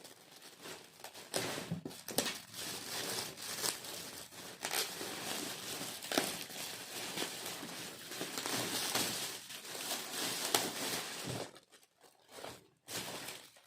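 Gift wrapping being torn open and crumpled by hand: continuous crinkling and ripping that dies down about eleven seconds in, leaving a few short rustles.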